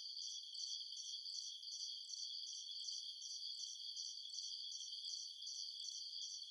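Crickets chirping: a steady high trill with a shorter chirp repeating about three times a second.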